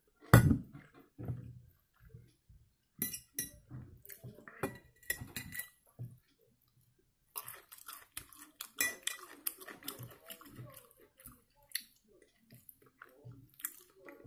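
A glass jar set down on a wooden table with a heavy knock about half a second in, then scattered clinks and taps of a fork against a glass plate, with chewing between them.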